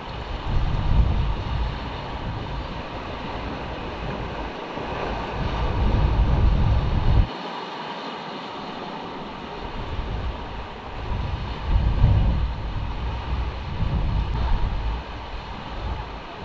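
Wind buffeting the microphone in uneven gusts of low rumble, one dropping away suddenly about seven seconds in, over the steady hiss of surf breaking on rocks.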